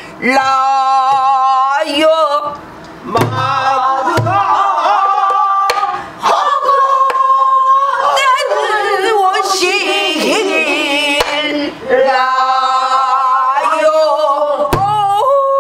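A woman sings pansori with wide vibrato and long held notes, accompanying herself on a buk barrel drum. There are occasional sharp stick strokes, and deep thumps on the drumhead about three seconds in and again near the end.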